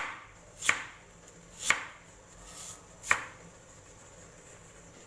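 Kitchen knife slicing a purple yam thinly on a wooden cutting board: four sharp knocks of the blade hitting the board at uneven intervals over the first three seconds.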